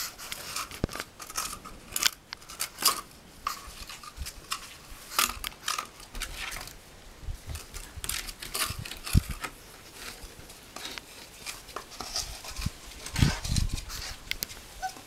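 Welsh springer spaniel puppy chewing and batting an empty cardboard toilet-roll tube across a stone terrazzo floor: irregular crackling, scraping and clicking, with a few soft thumps.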